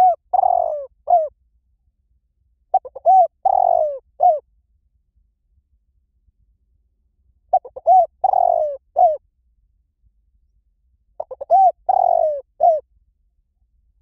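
Spotted dove cooing: four phrases about four seconds apart. Each phrase is a few short quick notes, then a longer note and a final short note.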